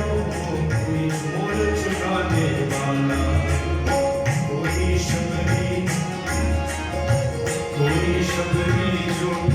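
Devotional bhajan music: a steady percussion beat with jingling strikes about twice a second over a low drum, under held melodic notes.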